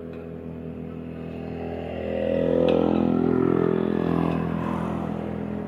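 A vehicle engine running close by, its sound swelling louder from about two seconds in and fading again toward the end, as a vehicle passing would. There is a single sharp click near the middle.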